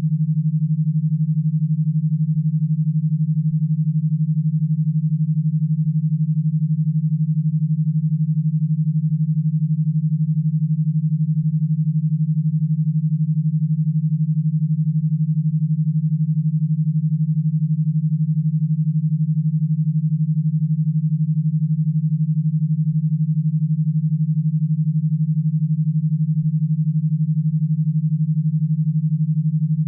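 Synthesized e-stim signal: a steady low tone with a fast, even flutter, about twelve pulses a second, unchanging throughout. It is a drive signal meant to be fed to an electro-stimulation power box, not music for listening.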